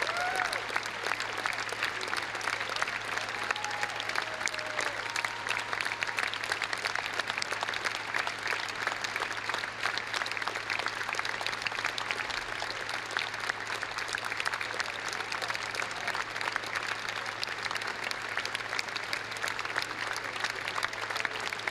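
Large theatre audience applauding steadily: a dense, even patter of many hands clapping that neither builds nor fades.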